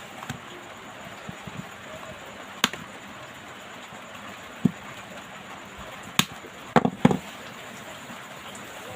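A handful of sharp clicks and light knocks, about five spread over several seconds with a close pair near the end, from small tools and parts being handled during a phone teardown. A steady hiss runs underneath.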